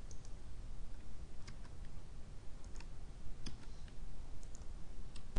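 Scattered light clicks of a computer mouse and keyboard, often in quick pairs, over a steady low hum.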